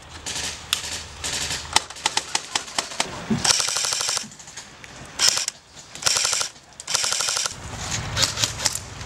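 Airsoft guns firing several short full-auto bursts, each a fast even rattle of shots, with scattered single shots in between.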